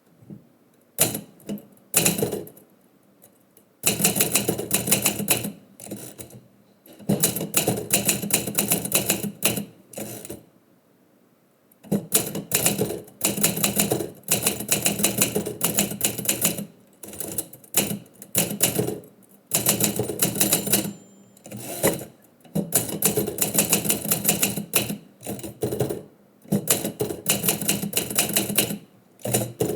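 Manual typewriter being typed on: rapid runs of key strikes in bursts of a few seconds, broken by short pauses.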